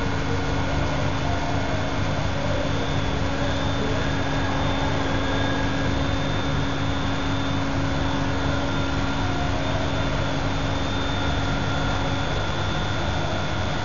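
Electronic stone bridge saw running steadily while cutting a countertop: a constant machine noise with a few steady tones. A low hum drops out about twelve seconds in.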